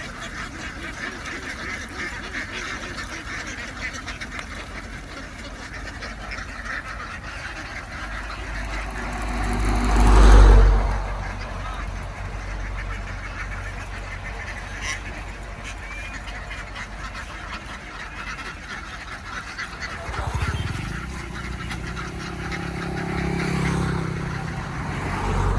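A large flock of domestic ducks quacking without pause, a dense chatter. About ten seconds in, a loud low rumble swells up and fades, and near the end a low hum comes in.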